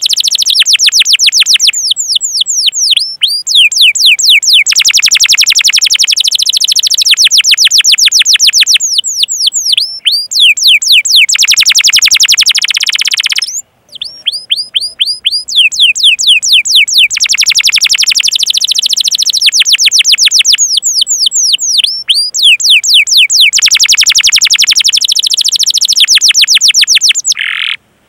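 Domestic canary singing loud, fast rolling phrases of rapid, evenly repeated chirps, each phrase a few seconds long and changing speed and pitch between phrases, with a short break about halfway through.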